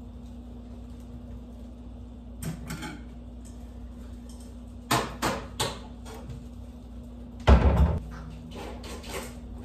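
Wooden kitchen cabinet door opened and shut, with a few sharp knocks and clatters as things are handled, and a heavy thud about three quarters of the way through as the door is closed.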